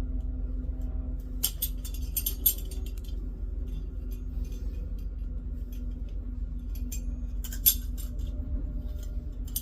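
Metal tools and flush-valve fittings clinking as they are handled and tightened, in two bursts of light clicks about a second and a half in and again near eight seconds, over a steady low hum.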